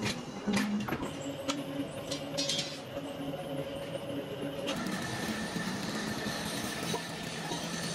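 Metalworking shop machinery running, with sharp metal knocks and clicks over a steady hum in the first few seconds. About halfway through the sound changes abruptly to a steadier, hissier machine noise with a high steady whine.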